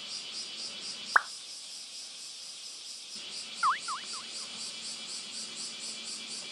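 Cicadas calling in a steady, rhythmic pulsing chorus. About a second in there is one sharp click, and a few short high chirps come a little past the middle.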